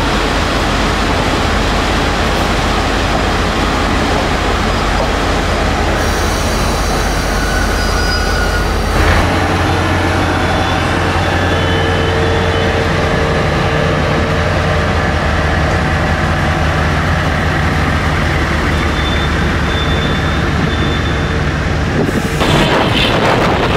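Taiwan Railway ordinary train hauled by an R100 diesel-electric locomotive pulling out, heard through the open window of its coach: a steady low engine rumble and wheel-on-rail noise, the rumble shifting in pitch about nine seconds in. Faint high tones come and go in the middle. Near the end, wind buffeting at the open window rises.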